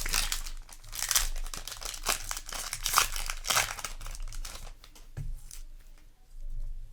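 Foil wrapper of a Yu-Gi-Oh booster pack being torn open and crinkled in the hands. The crackling is densest over the first four seconds, then dies down with a soft thump near the end.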